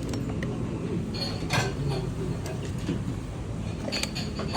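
Dishes and cutlery clinking a few times over a steady low murmur of background chatter.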